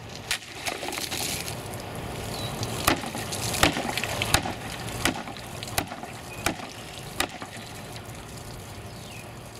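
A sword blade hacking at water-filled plastic jugs and a hard hollow plastic water-filled ball: about ten sharp chopping strikes, loudest a few seconds in, with water spilling from the cut jugs.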